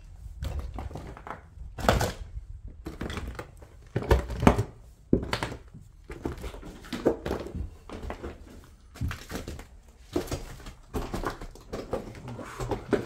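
Irregular footsteps thudding on the wooden stairs and floorboards of an old house, one step every half-second to a second.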